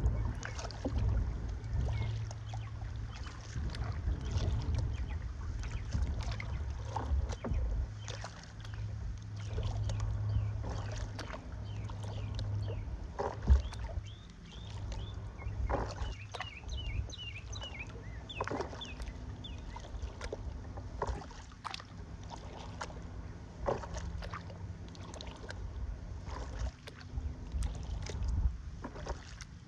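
Kayak paddle strokes splashing and water lapping against the kayak's hull, over a low wind rumble on the microphone. One sharp knock stands out about halfway through.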